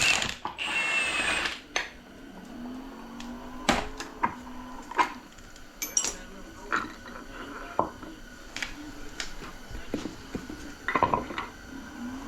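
Metal parts of a 4L60 automatic transmission clinking and knocking against each other as they are handled during teardown, in scattered separate clicks. A short rushing noise comes about half a second in.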